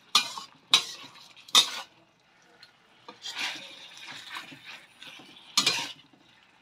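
Metal spoon scraping and clanking against a metal wok while stirring chunks of beef in thick rendang paste. There are three sharp scrapes in the first two seconds, softer stirring in the middle, and another sharp scrape near the end.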